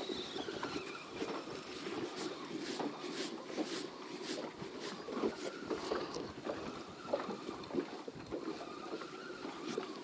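Choppy water lapping and slapping against the hull of a small fishing boat, with many small irregular splashes and knocks and a light wind.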